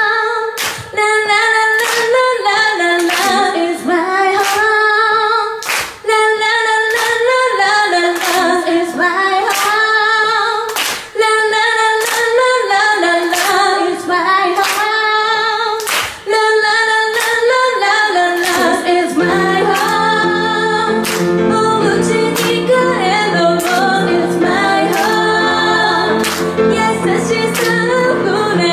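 Young woman singing a ballad live into a microphone with piano accompaniment, and evenly spaced sharp claps keeping the beat. About two-thirds of the way through, the piano's lower notes come in fuller.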